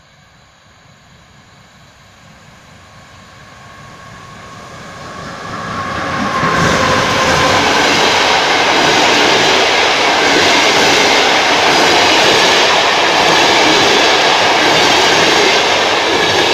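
PKP Intercity TLK passenger train pulling out of the station and passing close by. It grows steadily louder as it approaches, and about six seconds in the locomotive and coaches go by with a loud, steady rush of wheels on rails that lasts until the last coach is past.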